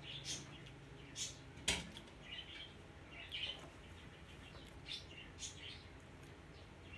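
Faint mouth sounds of chewing a piece of chocolate pastry: scattered small smacks and clicks, with one sharp click a little under two seconds in. A few short bird chirps come through in the background.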